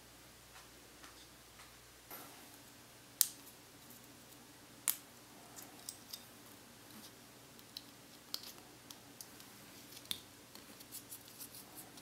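Small plastic clicks and ticks of a microSD card being handled and pushed into a small USB card reader and SD card adapter. Two sharper clicks come about three and five seconds in, followed by many light ticks.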